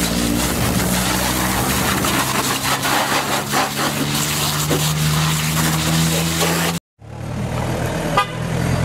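High-pressure washer jet hissing as it sprays down the body and wheels of a Suzuki Jimny, with a steady hum underneath. It cuts off abruptly about seven seconds in, and a quieter, different sound follows.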